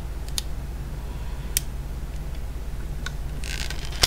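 Hands handling a plastic Weller iron handle: a few sharp plastic clicks, then a short scrape near the end as a part is pulled from the handle, over a steady low hum.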